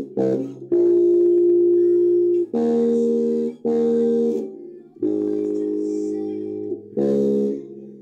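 Precision-style electric bass guitar played fingerstyle: a slow bassline of held notes, each ringing for about half a second to two seconds before the next is plucked.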